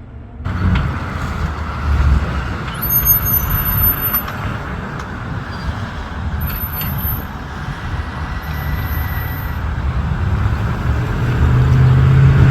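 City bus engine running with steady road noise, its low engine note growing louder near the end as it pulls away or accelerates.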